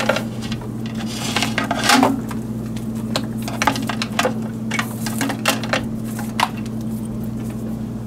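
Light clicks and rustles of a thin thermostat wire being handled and moved about among the wiring in a wooden controller box, over a steady low hum.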